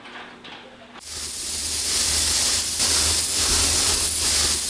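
Sandblaster blasting abrasive media: a loud, steady hiss with a low rumble underneath, starting about a second in.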